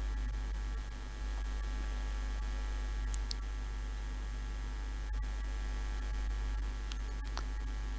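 Steady low electrical mains hum.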